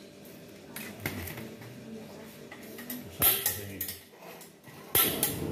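A knife scraping and knocking against a charred cow's foot on a bamboo tray, a few short scrapes and clicks. About five seconds in a portable gas stove is lit with a sharp click, and its burner catches with a steady rushing flame.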